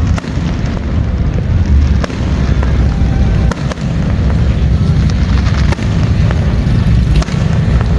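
Fireworks going off: several sharp bangs at irregular intervals over a steady low rumble.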